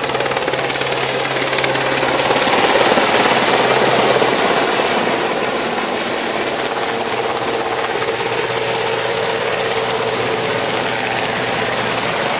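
A Royal Navy Westland Sea King search and rescue helicopter flying low past, its rotor and turbine engine noise loudest about three seconds in, then easing slightly and holding steady as it heads away.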